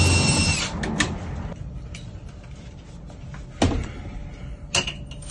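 Metal scraping with a short squeal for under a second, then a few separate sharp metallic clanks: metal hardware being moved and handled at a storage unit.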